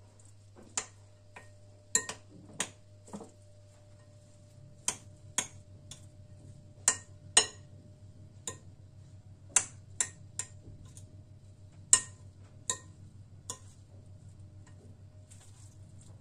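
Metal spoon clinking against the side of a glass mixing bowl while stirring a soaked bulgur mixture: about seventeen sharp, ringing clinks at irregular intervals, some in quick pairs, over a low steady hum.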